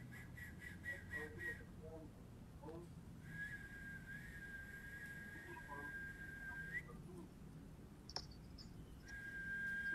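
A high, pure whistling tone played as a healing sound. It starts as a quick run of short pulsing notes, then holds one steady note for a few seconds that flicks upward as it ends. The same steady note starts again near the end, with a faint click just before it.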